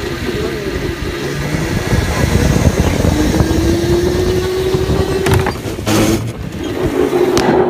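Go-kart motor running under way on an indoor track, heard from the driver's seat, its pitch rising and then holding. A few sharp knocks come near the end.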